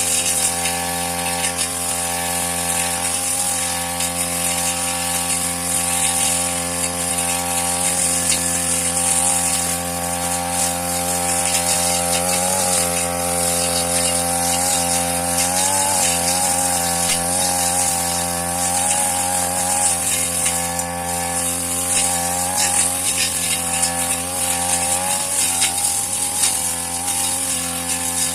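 Petrol brush cutter engine running steadily while cutting grass, its pitch wavering and dipping briefly as the blade takes the grass, several times in the second half.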